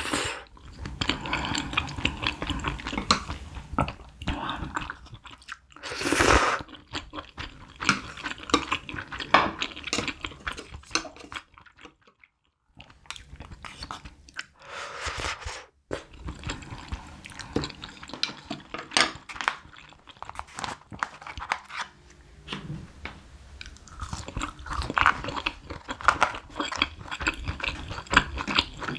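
Close-miked eating of spicy stir-fried instant noodles: wet chewing and mouth smacks throughout, with two louder slurps of noodles from a spoon, about six and fifteen seconds in.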